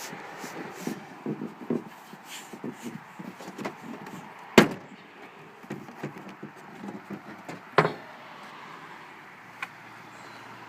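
Plastic interior trim panel of a Toyota Sienna's rear liftgate being pried off by hand: the panel knocks and rustles, with two sharp snaps a few seconds apart as its retaining clips pop free.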